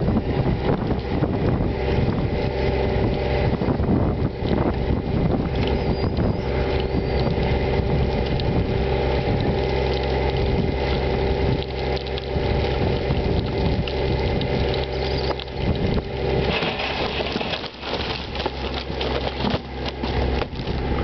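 Truck and trailer hydraulics running steadily as the shuttle floor pushes a load of wooden railroad ties out the back of the trailer, with scattered knocks from the shifting ties. In the last few seconds the ties tip off the end and clatter to the ground.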